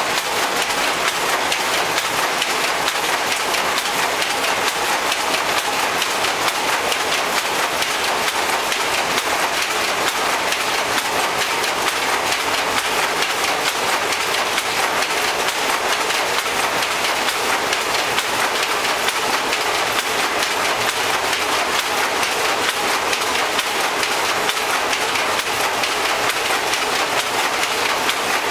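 Power Jacquard loom with a punched-card chain weaving at speed: a steady, rapid mechanical clatter that never lets up.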